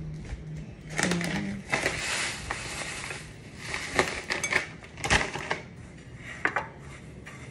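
Kitchen utensils and dishware clattering: several sharp clinks and knocks, with a short stretch of hiss around two seconds in.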